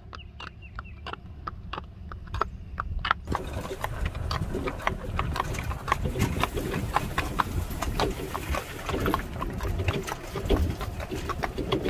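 Hooves of a Rocky Mountain Horse striking pavement in an even gait, about four hoofbeats a second. About three seconds in the sound jumps to a louder rumble with wind noise beneath the continuing hoofbeats, from the moving golf cart alongside.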